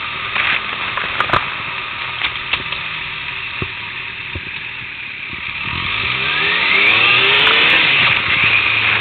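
Motorcycle engine running at low speed, with a few sharp clicks in the first few seconds. About six seconds in it pulls away, rising in pitch and getting louder, with a brief dip near the end.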